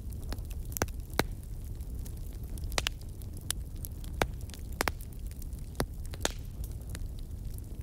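Wood fire burning in a fireplace, with a low steady rumble and irregular sharp crackles and pops from the burning logs.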